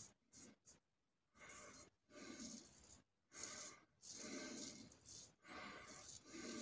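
Faint scraping of a Merkur 34G HD safety razor with a Wilkinson Sword blade cutting stubble through lather on the neck, in a series of short strokes with brief pauses between them.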